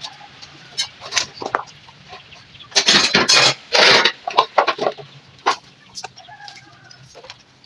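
A series of short, irregular clucking and squawking calls like a domestic chicken's, loudest about three to four seconds in, with a few fainter calls after.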